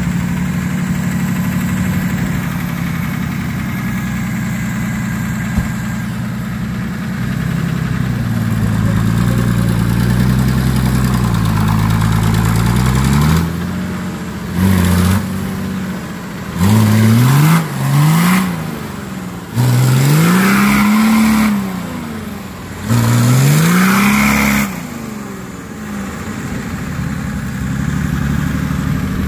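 A 4x4 off-roader's engine running steadily, then working up and down in pitch and revved hard in about five short bursts in the second half, each a quick climb in pitch, before it settles back to a steady run.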